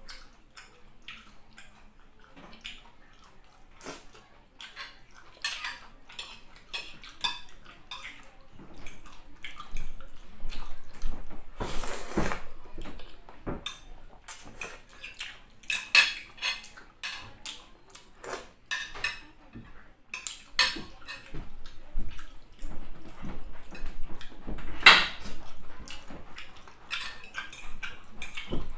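Close-up eating sounds: a metal fork and clam shells clinking and scraping on a ceramic plate, with noodles being slurped and chewed and many small wet clicks throughout. The longest, loudest slurp comes a little before halfway.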